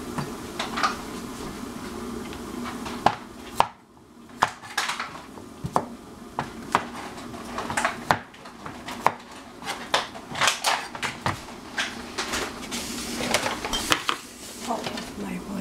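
Kitchen clatter: utensils and dishes clinking and knocking in irregular sharp clicks, some ringing briefly, over a faint steady hum.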